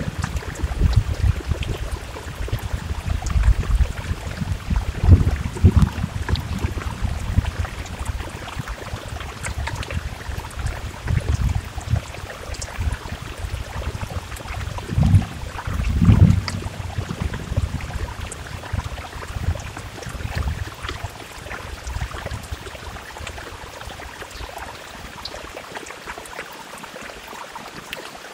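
Heavy rain with many small drop ticks, under a deep low rumbling that swells twice, a few seconds in and about midway, then dies down toward the end.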